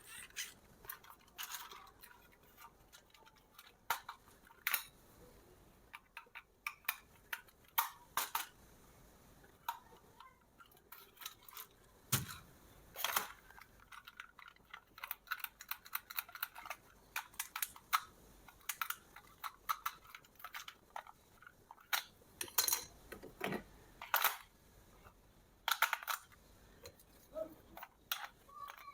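RC toy and its packaging being handled: irregular sharp clicks, taps and short rustles, scattered throughout.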